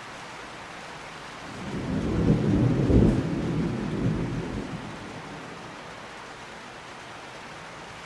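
Steady rain hiss, with a roll of thunder that swells about a second and a half in, rumbles loudest near the middle and dies away after about five seconds.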